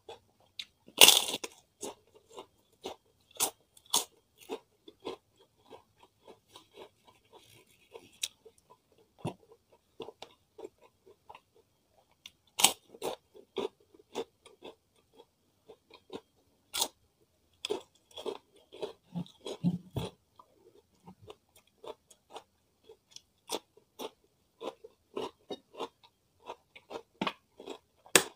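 Close-miked crunching and chewing of a crispy cracker: a loud bite about a second in, then many short sharp crunches as it is chewed, with further loud bites now and then.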